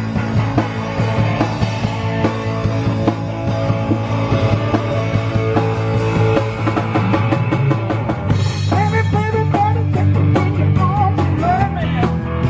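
Live rock band playing, with a drum kit keeping a steady beat under electric guitar; about eight seconds in, a higher, wavering melody line comes in over it.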